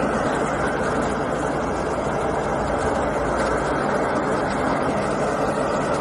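Caterpillar 432F2 backhoe loader's diesel engine running steadily under load, driving a backhoe-mounted Dazzini QST3000D chain saw whose bar grinds through a marble block. The sound is a dense, even grinding over a low engine hum, with no change in pace.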